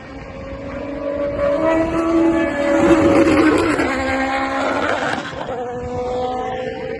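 Racing car engines passing at high revs, several steady high engine notes that drift slowly in pitch, swelling to a peak about three seconds in and then fading.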